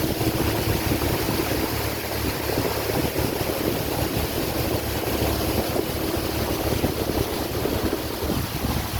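Motorboat running along a river: a steady engine hum under the rush of water past the hull, with wind buffeting the microphone.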